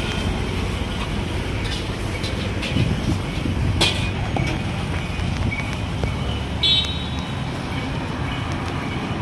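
Steady street traffic noise with a brief vehicle horn toot about two-thirds of the way through. A few sharp clinks from the stall's metal utensils rise above it.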